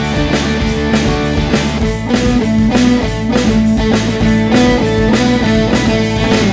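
Rock song in an instrumental passage between sung lines: guitar over a steady drum-kit beat.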